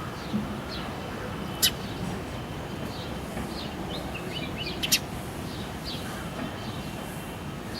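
House sparrows chirping: many short chirps, with two sharp, loud ones about a second and a half in and near five seconds in, over a steady low background noise.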